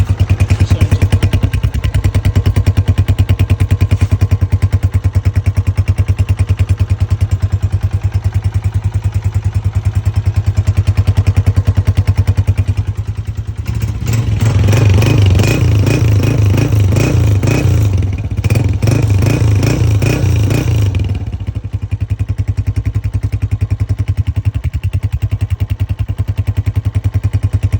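Atlas Honda CG125 single-cylinder four-stroke engine idling with a steady exhaust beat through a KYH aftermarket silencer. About halfway through, the throttle is blipped several times over some seconds, and then the engine settles back to idle.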